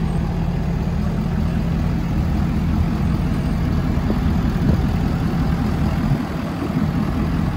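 Large truck engine idling steadily, a low-pitched running sound with a short dip in level about six seconds in.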